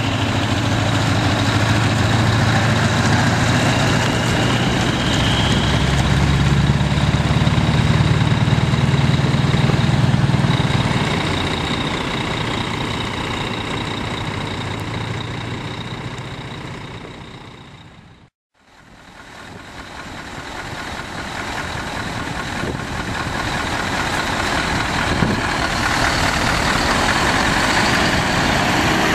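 Scania R-series trucks' diesel engines running as they drive slowly past, loudest in the first ten seconds. The sound fades out completely about two-thirds of the way through, then another truck's engine builds back up near the end.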